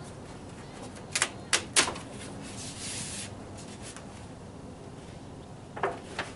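Painted wooden panels knocking against each other and the table as they are handled and stacked: three sharp knocks about a second in, a short hiss, then two more knocks near the end.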